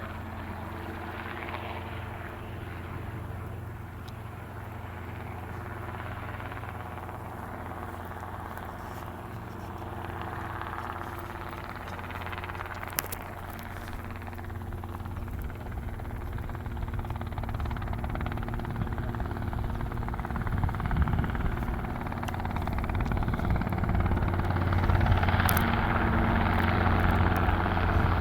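Helicopter flying overhead: a steady low rotor drone with a pulsing whoosh, growing louder over the last third as it comes closer.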